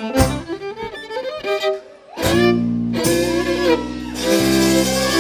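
Live folk-band music led by a fiddle, with acoustic guitar and accordion behind it. The music drops out briefly about two seconds in, then comes back with long held notes.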